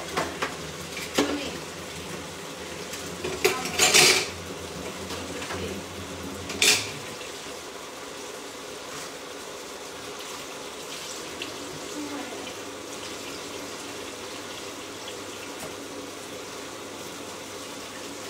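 Kitchen clatter: a few clinks and knocks of pots, pans and utensils in the first seven seconds, the loudest about four seconds in, then only a steady low background noise.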